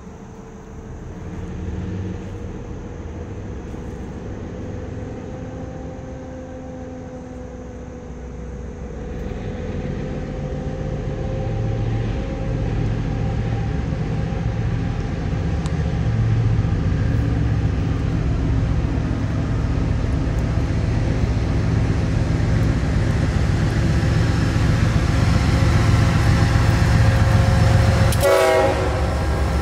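Norfolk Southern diesel freight locomotives approaching on the mainline, their low engine rumble growing steadily louder, with steady whine tones above it. A brief pitched blip comes just before the end.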